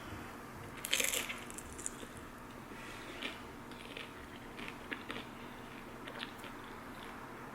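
A person biting into and chewing crunchy food: one loud crunch about a second in, then smaller crunches and clicks scattered through the rest.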